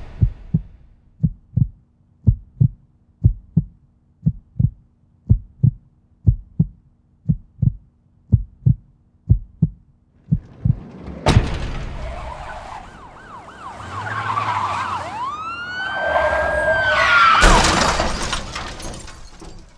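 Low thumps in pairs about once a second, like a heartbeat, for about ten seconds. Then a sudden crash, followed by police sirens wailing up and down over a noisy wash that swells loudest near the end.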